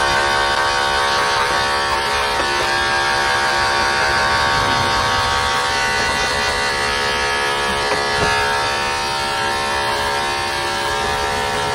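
Corded electric dog-grooming clippers running with a steady, unchanging hum as the blade clips through a poodle's curly coat.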